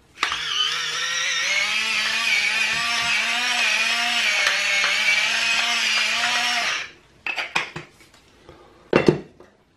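Electric pepper mill grinding peppercorns, its small motor running steadily for about seven seconds and then stopping. A few light knocks follow near the end.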